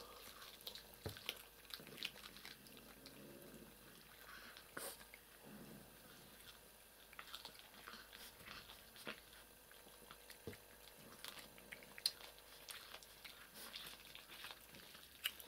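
Cats chewing raw crucian carp and fish guts from a plate: faint, scattered wet crunches and small clicks of teeth on fish.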